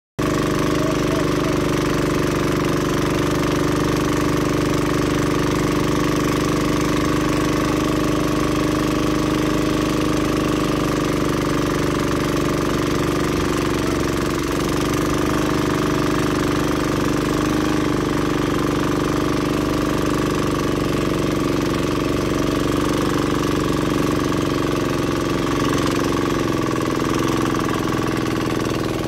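Outrigger fishing boat's engine running steadily at speed, with water rushing past the hull.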